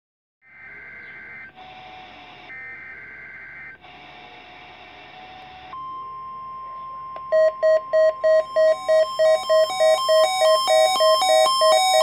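NOAA weather radios receiving a Required Weekly Test: one-second warbling SAME data bursts alternating with radio hiss, then a steady alert tone from about six seconds in. After about seven seconds the receivers' own alert beeping joins it, rapid and even at roughly three beeps a second.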